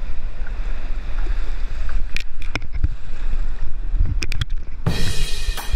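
Surf washing around a camera at water level: a heavy low rumble of water and wind buffeting the microphone, with sharp splashes and knocks from about two seconds in and a wider hiss of spray near the end.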